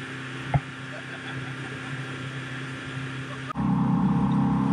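Boat's outboard motor running steadily while the boat is under way. About three and a half seconds in, the sound cuts to a much louder, closer take of the same kind of engine drone. There is a single sharp click about half a second in.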